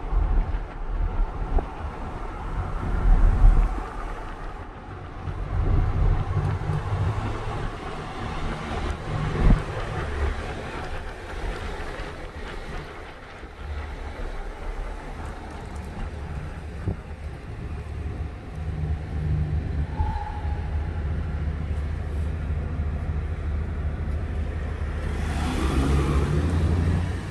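Car on the move heard from inside the cabin: a low, uneven road and engine rumble, with a broad swell of noise near the end.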